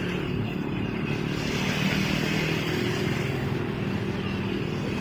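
Motorcycle engine running steadily while riding, with a rushing hiss that swells about a second and a half in and fades a couple of seconds later.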